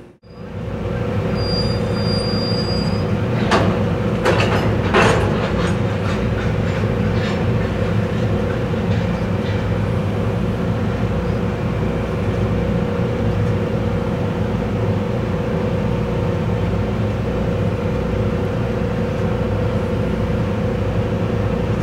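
Steady rumble and hum of railway equipment beside a standing freight train, with a brief high squeal about two seconds in and a few sharp metallic clanks between three and five seconds in.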